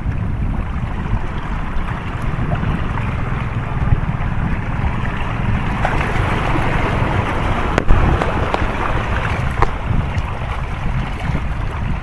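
Wind buffeting the microphone over sea waves washing against shore rocks, with one sharp click about eight seconds in.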